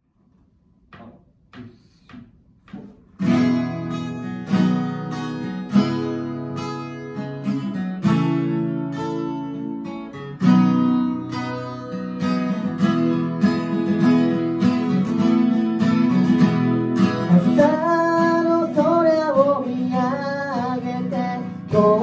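Two acoustic guitars, capoed at the fourth fret, strumming the intro chords C, Em7, Am7, F, G and Csus4. After a few soft taps the strumming starts about three seconds in, and a wavering higher melody joins over it near the end.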